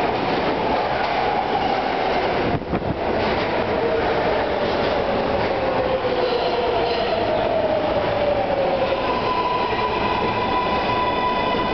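An R143 subway train pulls into the station and brakes, with loud wheel and rail noise. Its motor whine falls steadily in pitch as the train slows. A steady higher tone sets in near the end.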